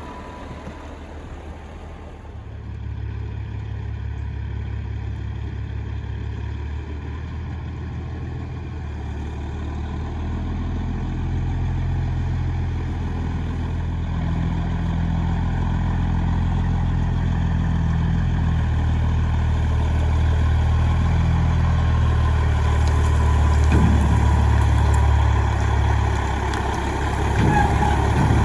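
Heavy truck's diesel engine running steadily at low speed, slowly getting louder.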